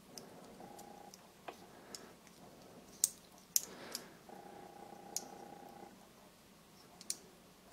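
A handful of faint, sharp clicks of small metal parts as the ISSC MK22's trigger mechanism is handled and a pin is worked through it. A faint, steady hum comes and goes twice.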